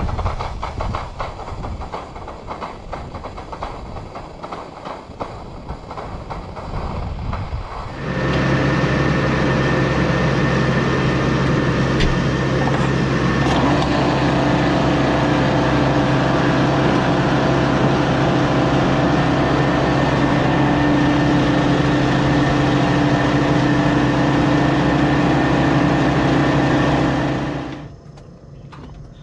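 Compressed air blowing water out of an open water line, a loud fluttering hiss of air and spray. About eight seconds in, a steady machine hum with a constant pitch starts abruptly and runs until it cuts off near the end.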